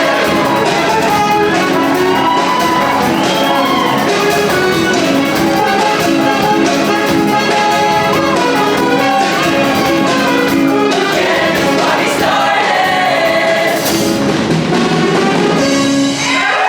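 Show choir singing over a live band with brass, the music ending just before the close.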